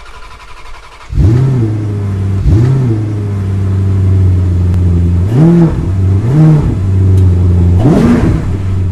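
Car engine starting about a second in, then idling with five quick revs that rise and fall in pitch, the last one highest.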